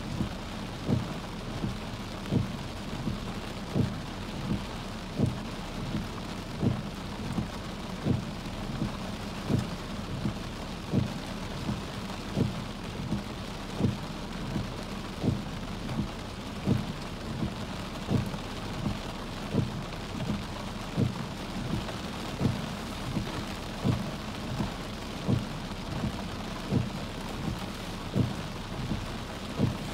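Car windshield wipers running in a steady rhythm, heard from inside the car, with a low thump about every three-quarters of a second as the blade turns at each end of its sweep. Underneath is the steady hiss of heavy rain on the car.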